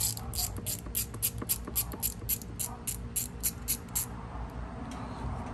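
Socket ratchet clicking steadily, about four clicks a second, as a solenoid mounting screw on an outboard starter is turned out. The clicking stops about four seconds in.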